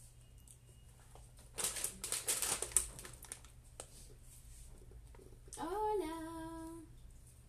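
Plastic snack bag crinkling as it is picked up and handled, with dense crackling for about a second and a half. Near the end comes a short hummed 'mmm' that rises and then holds for about a second.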